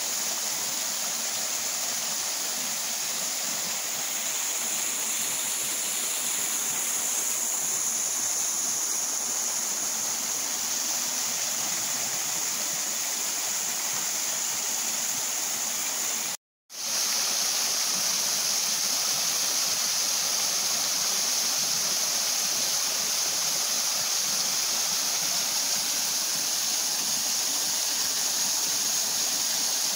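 Half-frozen waterfall with water flowing heavily, a steady rush of falling water. The sound drops out for a moment about halfway through, then comes back.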